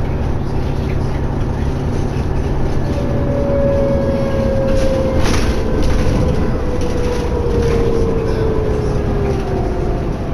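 Cabin noise of a New Flyer D60LFR articulated diesel bus under way: a steady engine and road rumble, with a whine that slowly falls in pitch from about three seconds in. A sharp click comes about five seconds in.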